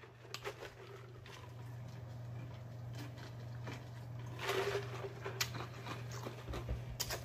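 A man drinking from a large glass mug: a swallow about four and a half seconds in and small mouth clicks, over a steady low hum.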